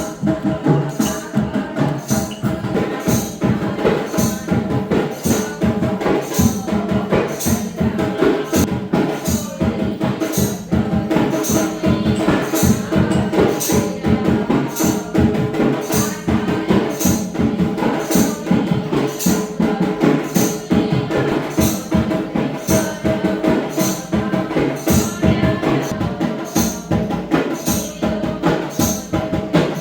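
Traditional Goan folk music for a lamp dance. A jingling, tambourine-like percussion strike keeps a steady beat about twice a second over held melodic tones.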